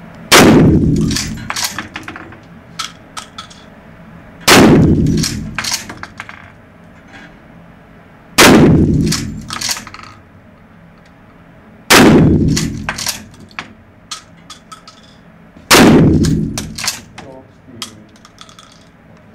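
Remington 870 pump-action shotgun fired five times, about four seconds apart, each loud shot echoing around an indoor range. Each shot is followed by a quick clack-clack as the pump is worked to chamber the next shell.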